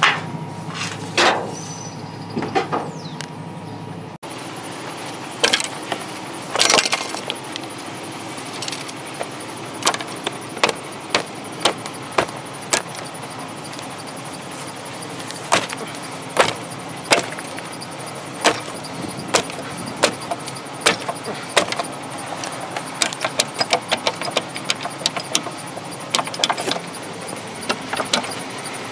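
Irregular sharp metallic clicks and knocks of brass faucet valves and fittings being handled and worked loose from a sink vanity top, a second or so apart at first and coming faster toward the end.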